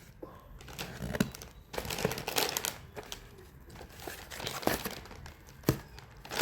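Wrapping being handled and unwrapped, with irregular crinkling and rustling and a few sharp crackles.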